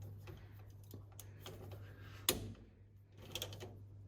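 Half-inch drive ratchet and socket working on a very tight differential cover bolt. Scattered faint clicks and knocks, with one sharper knock about two seconds in and a few clicks near the end.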